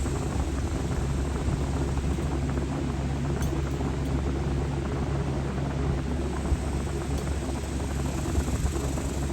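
Steady hum and rushing air of a running electric fan, the homemade 'hillbilly air conditioning', unchanging throughout.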